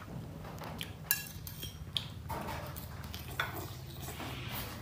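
Metal spoon clinking and scraping against a ceramic plate while eating, several sharp ringing clinks spread over the few seconds.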